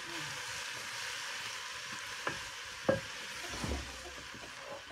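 Chopped leafy greens sizzling in a steel pot over a wood fire as they are stirred with a wooden spoon: a steady frying hiss, with a few sharp knocks of the spoon against the pot, the loudest about three seconds in.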